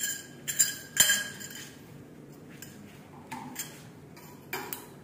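Thin metal wardrobe pipes clinking and knocking against each other as they are picked up and handled: a quick cluster of sharp, ringing clinks in the first second and a half, then a few lighter knocks later on.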